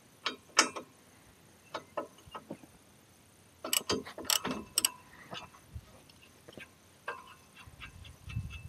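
Half-inch drive ratchet with an 18 mm socket clicking in short spells as nuts are loosened and removed, with light metal clinks of socket and nuts; the busiest, loudest run of clicks comes near the middle.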